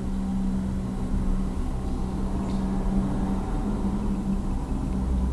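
Steady low hum from a running motor or appliance, with a faint click or two about two and a half seconds in, which may be the Airedale terrier puppy gnawing an apple core.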